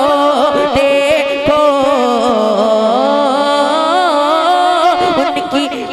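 Young male reciter singing a naat (Urdu devotional poem) solo into a microphone, his one voice drawing out the word 'dekho' into a long, wavering, ornamented melodic phrase.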